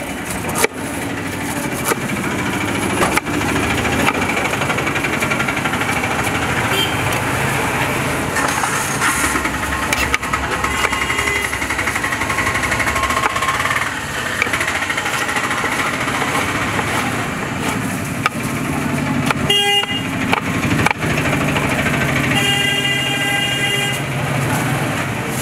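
Busy street traffic: a steady din of engines and motorcycles, with vehicle horns honking briefly about twenty seconds in and again for about two seconds near the end. A few sharp knocks stand out here and there.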